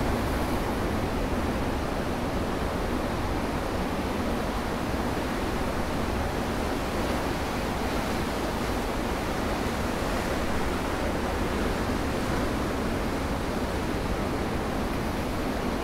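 Ocean surf breaking and washing over a rocky shore, a steady rushing noise with no separate crashes standing out.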